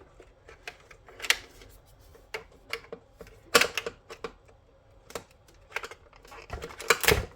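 Irregular clicks and knocks of small parts and tools being handled while a TV is taken apart, with louder clatters about three and a half and seven seconds in.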